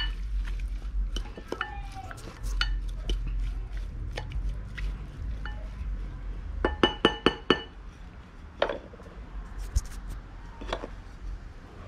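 Wooden spoon stirring poke in a glass bowl, with small scraping taps throughout. About seven seconds in there is a quick run of about six ringing clinks against the glass.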